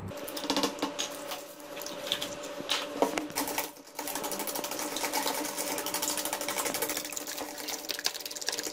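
A fork beating eggs in a ceramic bowl: fast, steady clinking of the fork against the bowl, broken off briefly about four seconds in, over a faint steady hum.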